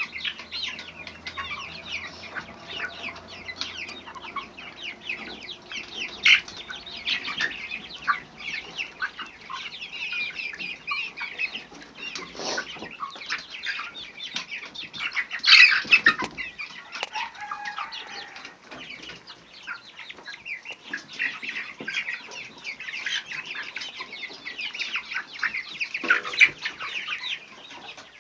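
Caged quail calling and clucking amid a dense, rapid patter of short ticks, with a few louder bursts about six seconds in, midway and near the end.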